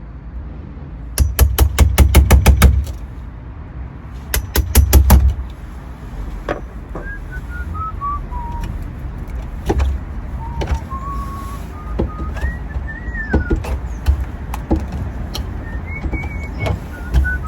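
Rapid taps of a hammer on a chisel cutting wood to ease where the key catches, in two quick bursts of several blows each. This is followed by a person whistling a wandering tune, with a few scattered knocks.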